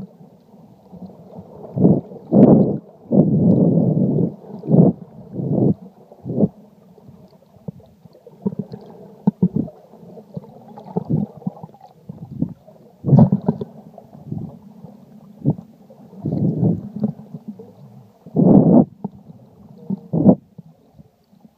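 Muffled underwater sloshing and gurgling of water moving around an iPhone sealed in a waterproof case. It comes in irregular dull bursts, most under a second long, with quieter stretches between.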